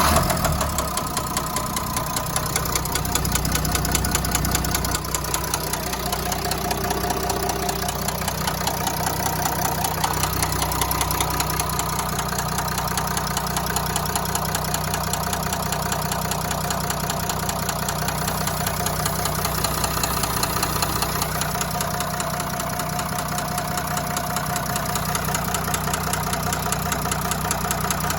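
Renault-Nissan V9X 3.0 dCi V6 diesel engine running steadily with a rapid, even knock: connecting-rod knock from a worn rod bearing.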